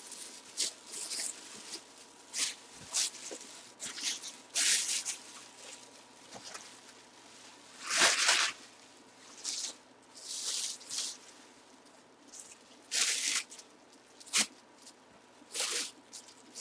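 Plastic bag and bubble wrap rustling and crinkling as they are handled, in short irregular bursts, the loudest about halfway through.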